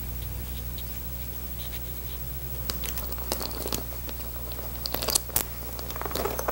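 Scattered small clicks, scrapes and vinyl crinkling as the chrome trim strip and its clips are worked loose along the edge of a Denfeld motorcycle seat, the clicks bunching up near the end. Under it runs a steady low hum.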